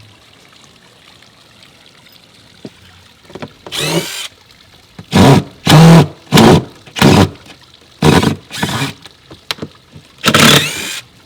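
A power driver, most likely a cordless impact driver, runs in about eight short, loud bursts of under half a second each, starting about three and a half seconds in. It is backing screws out of rotten deck boards, and the screws are snapping off.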